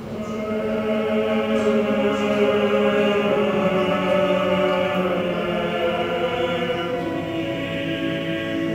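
Male choir singing slow, long-held notes together; the singing swells in over the first second and then stays full.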